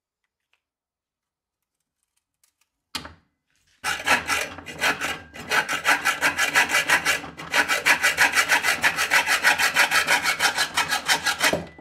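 A hand hacksaw cutting through a metal pin held in locking pliers, in fast, even back-and-forth strokes. It starts with a single short scrape about three seconds in, then saws steadily with a brief pause midway and stops right at the end.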